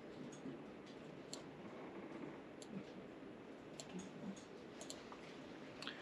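Faint, irregular clicks from a computer mouse and keyboard as addresses are entered into a PLC ladder-logic program, about a dozen in all, over quiet room tone.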